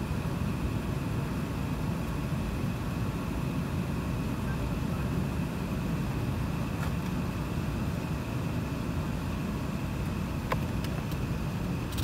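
Steady cabin noise of an Airbus A380 taxiing, heard from a window seat over the wing: a low, even rumble of its Engine Alliance GP7200 engines at taxi power, with a faint steady high whine. A few light clicks come near the end.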